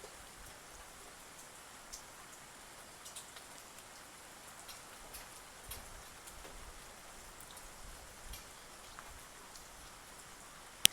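Eurasian tree sparrows pecking at food: scattered light ticks and taps over a steady hiss, with one sharp, louder click at the very end.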